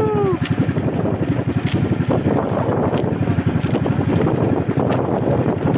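Strong wind buffeting the microphone over the rush of a small boat running through rough, choppy sea, with a few sharp knocks.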